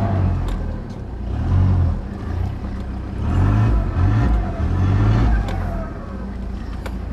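Toyota Hilux pickup's engine revving in repeated surges, rising and easing several times, as the truck struggles up a loose dirt hill in two-wheel drive and gets stuck.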